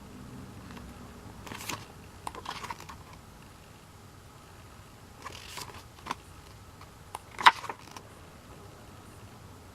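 Album packaging and its paper and plastic contents being handled: a few short rustles and sharp clicks, the loudest click about seven and a half seconds in.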